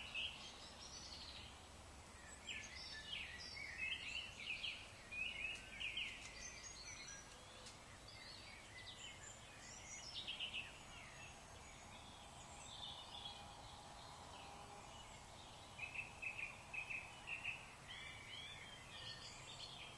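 Dusk chorus of woodland songbirds, several calling over one another, with blackbirds chattering among them. About sixteen seconds in, one bird gives a rapid run of repeated notes.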